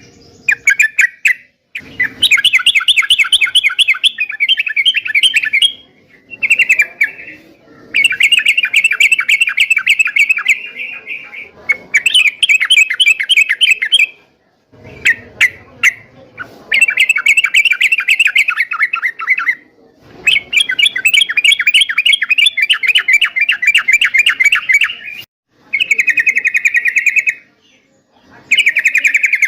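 Sooty-headed bulbul (trucukan) singing in fast chattering phrases of rapidly repeated notes, each phrase one to four seconds long, with short breaks between them.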